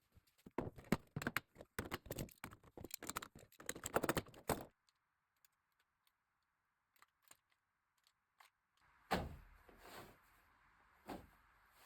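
Foley props handled at the microphone: a quick, dense clatter of small hard objects for about four and a half seconds, then a few scattered clicks, then three dull thumps near the end.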